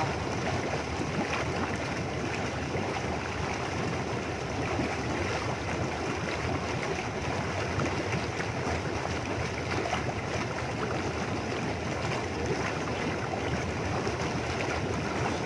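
Whirlpool jets of a small jacuzzi pool churning the water, a steady rushing and bubbling.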